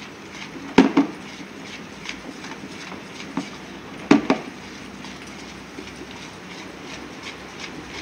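A spoon stirring thick cake batter in a plastic mixing bowl, making a run of scraping clicks. Twice, about a second in and about four seconds in, it knocks twice against the bowl, louder.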